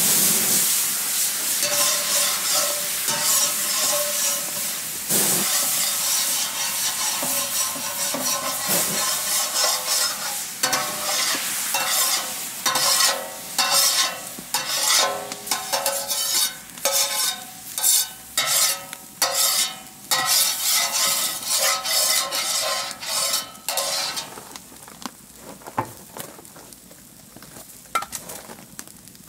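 Water sprayed from a hose nozzle onto a hot steel griddle, hissing and sizzling into steam. It starts as one long hiss, then from about ten seconds in comes in short bursts as the plate is sprayed and scraped with a wooden scraper, and it dies away a few seconds before the end.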